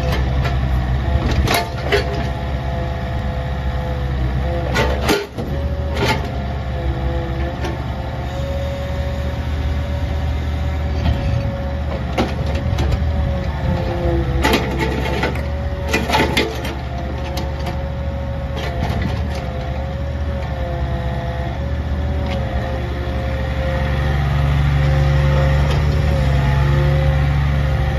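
Mini excavator's Kubota diesel engine running steadily under load, with a wavering hydraulic whine as the boom and bucket are worked, and several sharp metallic clanks from the arm and bucket. The sound grows louder about three-quarters of the way through as the machine travels on its rubber tracks.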